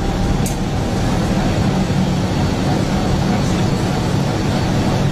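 Steady low rumble with a constant low hum underneath, like a running engine or traffic, unbroken and with no distinct events.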